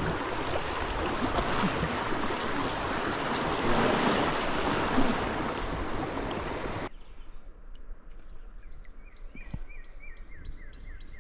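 Loud rushing, splashing river water that cuts off abruptly about seven seconds in. Then, over quieter background, a bird repeats a short downward-slurred note about ten times, roughly three a second.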